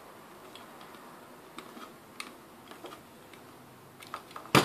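Faint scratchy ticks of a utility knife blade scoring around the outer plastic sheath of a shielded cable as the cable is turned against it, with one sharper, louder click near the end.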